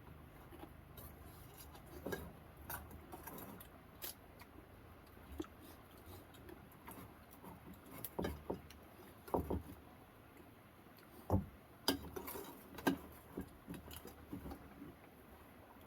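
Scattered light knocks and clicks at irregular intervals over a faint steady background, with a few louder knocks in the second half.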